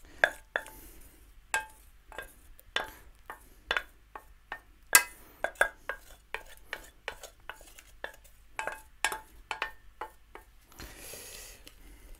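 A spoon knocking and scraping against the inside of a stainless steel pot, many irregular sharp clinks with a short metallic ring, as melted chocolate is scraped out into a glass bowl. A softer stretch of scraping and stirring near the end.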